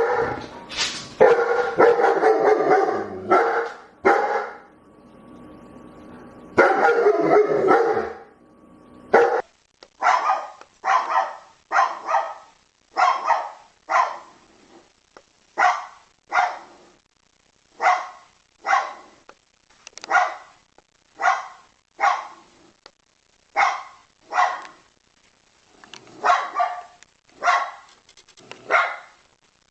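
Dog barking. First come two bouts of rapid, overlapping barks over a faint steady hum. From about nine seconds in there are single barks, spaced roughly a second apart.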